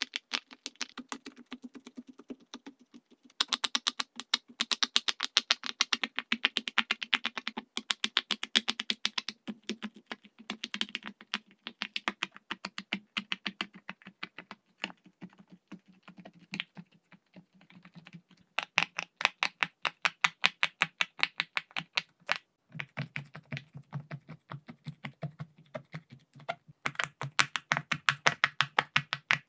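Silicone pop-it fidget toy bubbles being pressed in quick succession, rapid popping clicks in runs of several seconds with short pauses; from about two thirds of the way through the pops take on a lower pitch.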